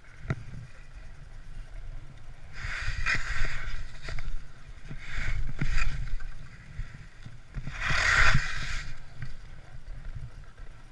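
Skis carving turns on hard, icy snow: three rasping scrapes of the edges, one per turn, the third the loudest, over a steady low rumble of wind on the helmet camera's microphone.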